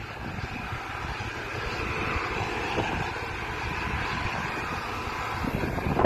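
Steady drone of harvest machinery running, with a faint steady whine through it.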